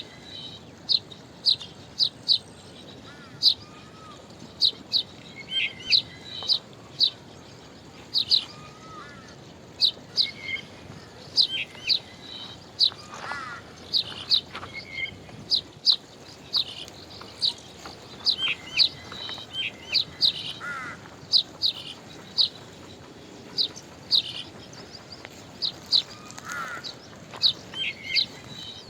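Several small birds chirping: short, sharp, high notes repeated in quick runs throughout, with a few lower chirps mixed in, over a faint steady background hiss.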